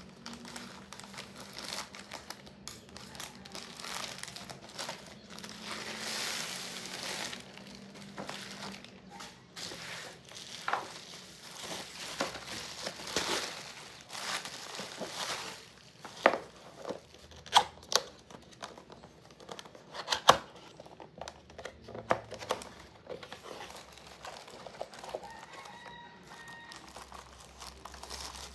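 Plastic and paper packaging being handled and unwrapped: crinkling and tearing, with a few sharp knocks about two-thirds of the way through.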